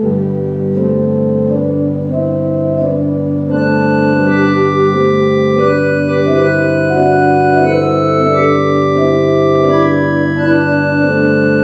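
Church organ playing slow held chords over a sustained bass pedal note; brighter, higher stops join about three and a half seconds in and the sound grows a little fuller.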